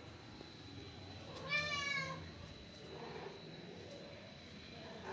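A domestic cat meows once, about a second and a half in, the call falling slightly in pitch. A fainter, shorter call follows about a second later.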